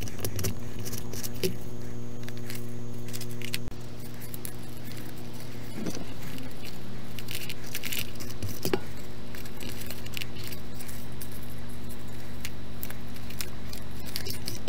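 Paper strips being handled, folded and pressed together with double-sided tape: scattered rustles and clicks over a steady low hum.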